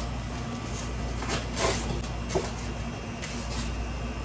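An empty cardboard box being handled and folded flat: a few short scraping rustles and a sharp click, over a steady low machinery hum.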